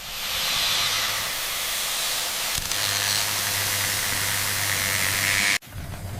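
A steady, loud rushing hiss that cuts off abruptly about five and a half seconds in, followed by a low rumble.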